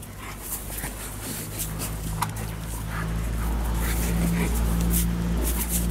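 Alaskan Malamute rolling and wriggling on its back in thin snow over grass, its fur and harness scuffing and rustling, with a few brief whines. A steady low engine hum grows louder underneath.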